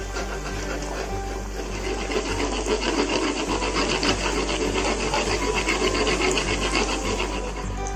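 Mangalore buns deep-frying in hot oil in an aluminium kadai, a dense crackling sizzle that grows loudest in the middle as a perforated slotted spoon stirs and splashes the oil over them. Background music with a steady bass line runs underneath.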